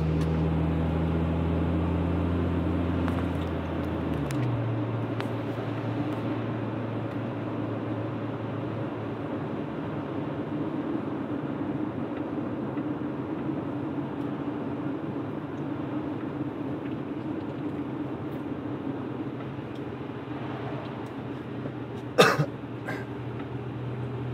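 Inside the cabin of a 2001 Acura Integra on the move, its 1.8-litre four-cylinder engine hums under steady tyre and road noise. The engine note drops about four seconds in. Near the end comes a short, sharp cough.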